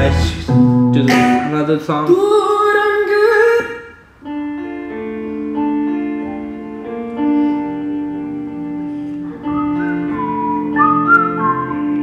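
Music played through a Sony SA-D100 4.1 speaker system: a song with singing stops about four seconds in, and a different piece starts, with held keyboard chords and a gliding lead melody over them from about ten seconds in.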